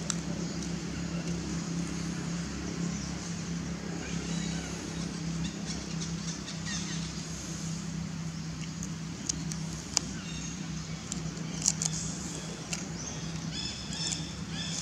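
Steady low engine hum, like a motor idling, with a few sharp clicks and faint high chirping over it.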